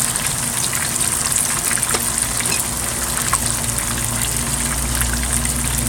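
Red snapper frying in hot oil: a steady sizzle with fine crackles, over a low rumble.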